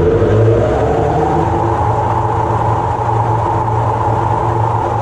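JBar tractor-driven rotary mower running under PTO power, its blades spinning, with a steady low engine hum. A whine rises in pitch about a second in and then holds steady as the blades come up to speed.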